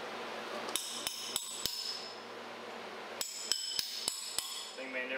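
Wrench striking the metal hub of a large press-brake flywheel: two runs of sharp, ringing metal strikes, four and then five, about three a second.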